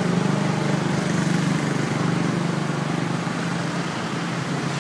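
Steady mechanical hum of a running motor or engine over an even hiss of background noise, with no distinct knocks or strikes.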